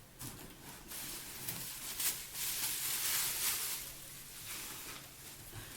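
Packaging rustling and crinkling as items are handled and pulled from the box, loudest from about two to four seconds in.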